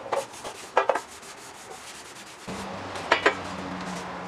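Cloth rag rubbing over the sheet-metal wheel covers of a band saw, with a few sharp metal knocks as the covers are handled on the wooden bench. A low steady hum comes in about halfway through.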